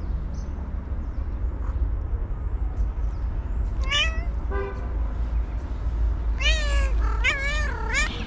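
White stray cat meowing: two short calls about four seconds in, then three more in quick succession near the end, each wavering in pitch, over a low steady rumble.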